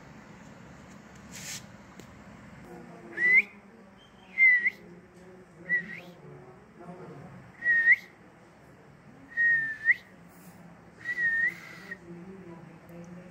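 A person whistling six short, breathy notes one to two seconds apart, each one ending with a quick upward flick in pitch.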